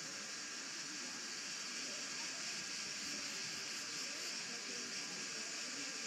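A steady high hiss, with faint indistinct voices underneath.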